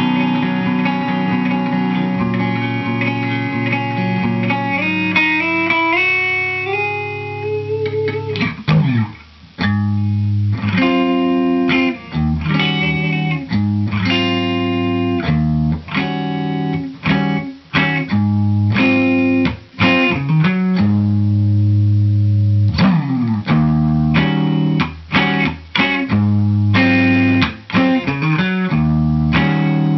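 Electric guitar played through a Barge Concept RC-2 compressor pedal into a Fender blackface Deluxe Reverb amp. Ringing held chords with a climbing line for the first several seconds, then choppy picked chords and riffs with short breaks.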